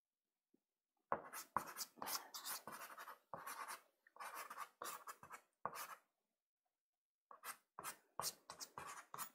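Soft pastel stick scratching across Pastelmat paper in a run of quick short strokes. The strokes start about a second in, stop for about a second past the middle, then start again.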